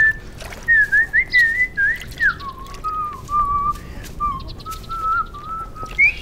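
A person whistling a tune. Short rising and falling phrases give way, about halfway through, to longer held notes a little lower in pitch.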